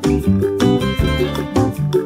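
Instrumental background music with a plucked guitar and a steady beat.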